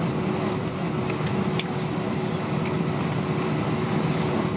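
Airbus A320's IAE V2500 engines running steadily, heard from inside the passenger cabin as a constant rumble with a thin steady hum. A few light clicks come about a second and a half in.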